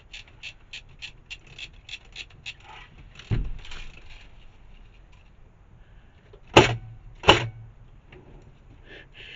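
Airsoft gunfire: faint quick clicking, about four shots a second, over the first two and a half seconds, a dull knock a little past three seconds, then two loud sharp shots under a second apart near seven seconds.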